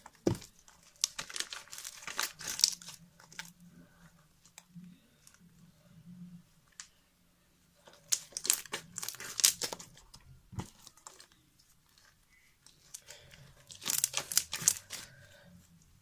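Sticky slime being handled, pulled apart and pressed down, giving off crackling, tearing clicks in three bursts with quieter handling between.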